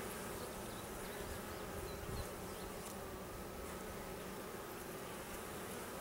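Honey bees buzzing steadily around an open hive and a frame of bees held up out of it.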